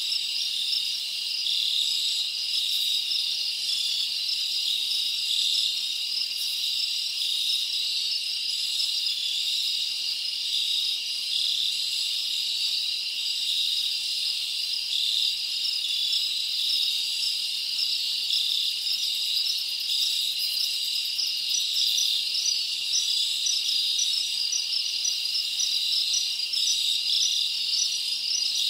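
Insects chirping in a steady, dense high-pitched chorus that carries on without a break.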